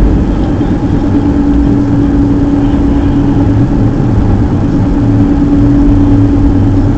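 Car driving: steady rumble of engine and tyres on the road, with a constant low hum.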